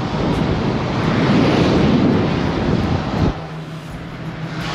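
Wind buffeting the microphone with a loud rush that cuts off abruptly about three seconds in. After it, the truck's engine hums steadily.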